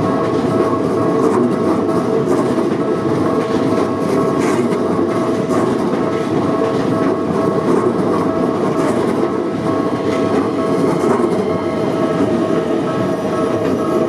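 Commuter train running over the level crossing: a steady rumble of wheels on rail with scattered clicks and a steady tone above it.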